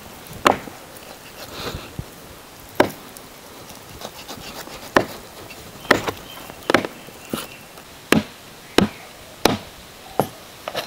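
Meat cleaver chopping beef on a wooden stump chopping block: single sharp chops, about ten in all, a couple of seconds apart at first, then coming steadily every second or less.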